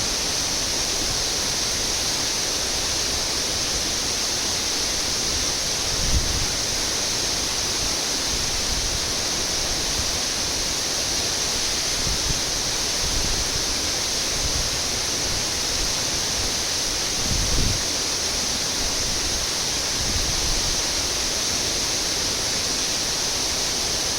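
Small waterfall pouring steadily, a continuous even rushing of falling water. Two brief low bumps, about six seconds in and again about two-thirds of the way through.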